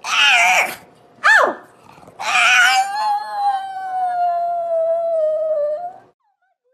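Pug howling: a short howl, a brief falling one, then one long howl that slowly drops in pitch and cuts off about six seconds in.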